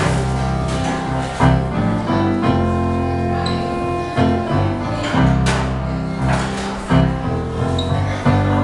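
Keyboard music with a piano sound: sustained bass notes under held chords, with a few sharp hits about one and a half, five and a half and seven seconds in.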